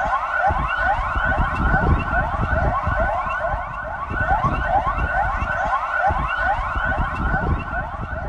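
Several sirens sounding at once, each a short rising whoop repeated rapidly, the whoops overlapping, over a low rumbling noise.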